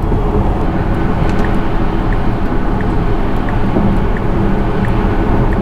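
Steady road and tyre noise inside a Tesla electric car's cabin at highway speed, with a faint turn-signal tick about every 0.7 seconds as Autopilot changes lanes.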